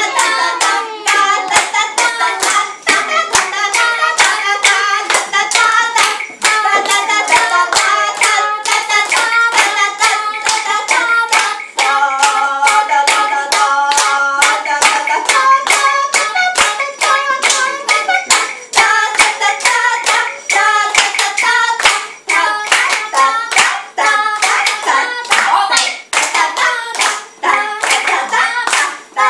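Hands clapping in a steady rhythm, about two to three claps a second, with voices singing along to the beat.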